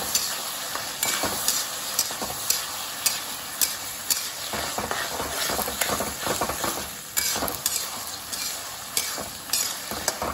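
Onion and capsicum frying in sauce in a wok, sizzling steadily while a metal spatula stirs and scrapes them, with irregular sharp clicks of the spatula striking the pan.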